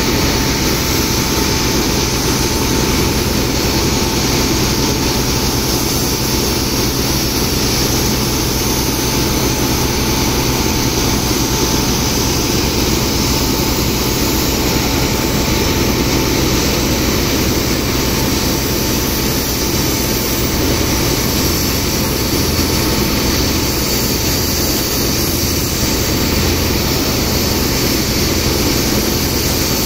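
Engine of a sand-pumping rig running steadily at constant speed, a continuous drone with the hiss of high-pressure water jets blasting into wet sand.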